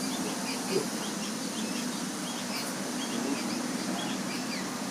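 Many small birds chirping in quick short notes over a steady background hum.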